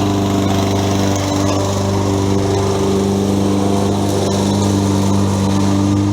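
Toro 20374 walk-behind self-propelled lawn mower's small petrol engine running steadily at a constant speed.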